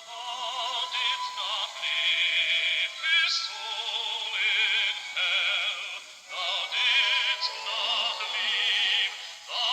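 Background music with a high voice singing long held notes with a wide vibrato, operatic in style, in phrases separated by short breaths.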